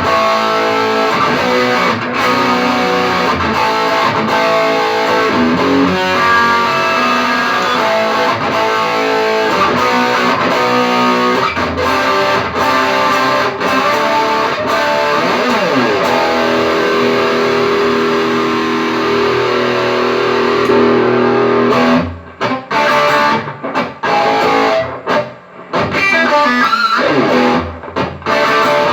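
Electric guitar played through a Mesa Boogie JP-2C tube amp head: a dense run of sustained notes, a slide about halfway through, and a long held chord, then choppy stop-start riffing with short silences between phrases over the last quarter.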